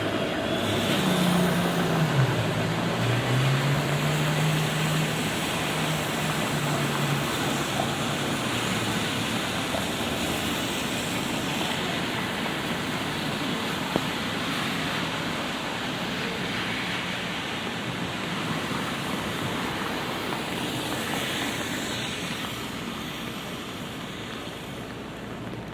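Steady light rain with city traffic. A vehicle's low engine hum dips in pitch about two seconds in and fades out by about nine seconds.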